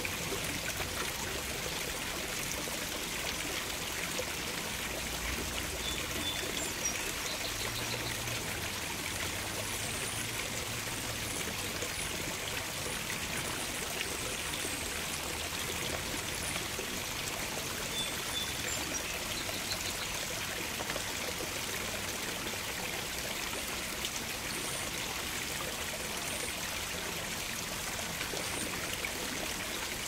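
Shallow water running steadily over a rock ledge and down a small cascade: an even, constant stream sound.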